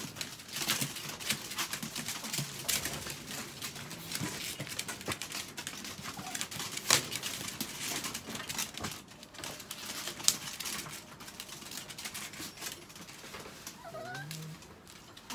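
Irregular clicks, taps and rattles from wire dog crates being handled, mixed with the rustle of a plastic floor tarp underfoot. A small dog gives a few short, high whines near the end.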